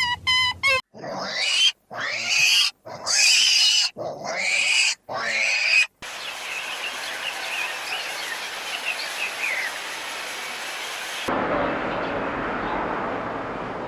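A run of loud animal calls, each cut off abruptly, about five in the first six seconds. They are followed by steady outdoor background noise with faint, short, high chirps.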